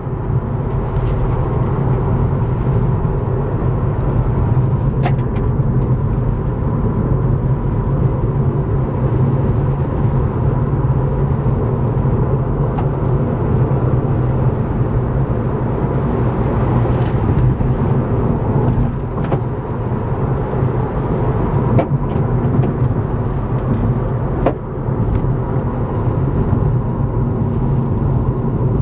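Steady road noise heard from inside a moving car's cabin: engine and tyre rumble on wet pavement, with a few sharp clicks here and there.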